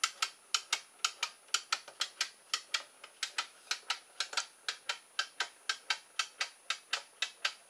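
Escapement of a wind-up clear plastic clockwork kit clock ticking steadily and fast, about four sharp plastic clicks a second in an uneven tick-tock. It swings a home-made plywood pendulum that has not been adjusted for the right speed, so the clock runs but does not keep good time.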